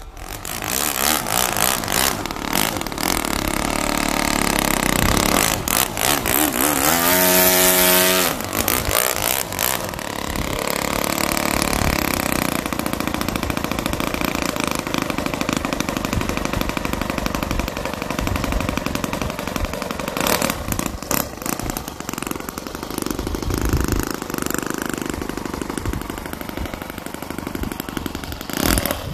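Small engine of a radio-controlled model airplane running on the ground. It is revved hard between about six and eight seconds in, then settles to a steady run.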